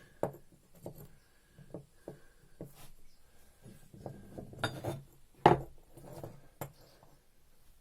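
Small metal parts of a Bosch common rail injector clinking and tapping as they are handled and taken apart, in irregular clicks with one louder knock about five and a half seconds in.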